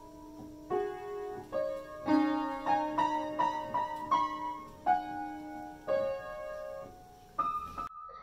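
Piano music: a simple melody of struck notes, several a second, with held chords underneath.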